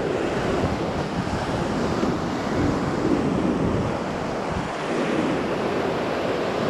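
Ocean surf breaking and washing up the sand, a steady rush, with wind rushing over the microphone.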